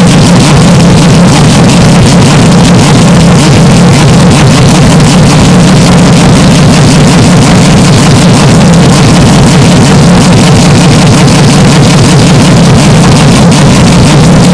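Historic Formula 1 race car engine running steadily, its sound boosted into constant clipping distortion: a harsh, buzzing roar with no clear rise or fall.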